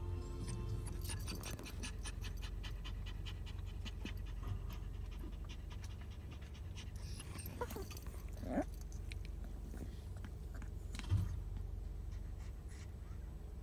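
Chihuahua panting rapidly, excited and eager to be let out to play. A short rising squeak comes a little past halfway, and a single knock about eleven seconds in.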